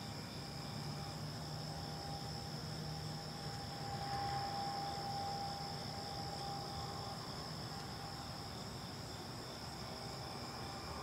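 Steady, high-pitched trilling of insects such as crickets. A fainter mid-pitched tone swells briefly about four seconds in.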